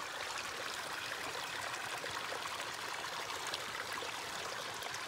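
Small stream of water running steadily over rocks.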